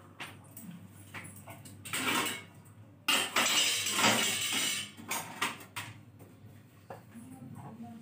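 Kitchen dishes and utensils clattering and clinking as a plastic plate is pulled from a rack of steel utensils. A short clatter comes about two seconds in, a longer, louder rattle follows about a second later, and a few lighter knocks come near the end.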